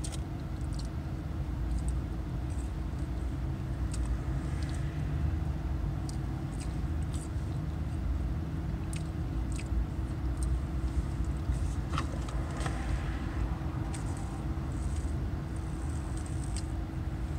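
Steady low rumble and hum of a car's idling engine heard inside the cabin, with small scattered clicks of chewing and mouth sounds over it.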